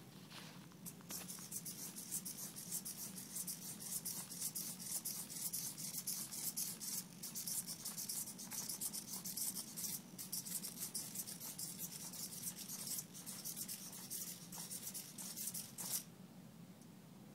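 Small three-servo hexapod robot walking on carpet: a fast, scratchy rustle that starts about a second in and stops suddenly near the end.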